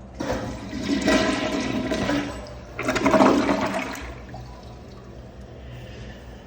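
Kohler Cimarron toilet flushing: a rush of water into the bowl starts just after the beginning, dips, surges again about three seconds in, then dies down.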